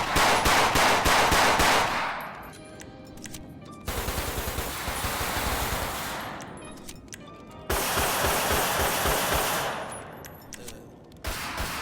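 Automatic gunfire sound effects from a gun sound pack: four bursts of rapid fire, each about two seconds long with an echoing tail, the last starting near the end.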